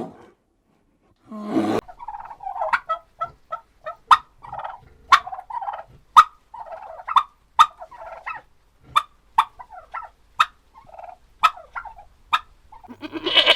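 Poultry calling: a long run of short, rattling calls, broken by sharp clicks about twice a second, with a louder burst near the end.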